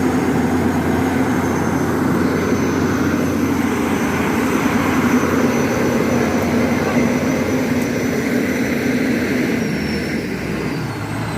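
Hyundai Robex 220-7 excavator's diesel engine running steadily with a continuous drone.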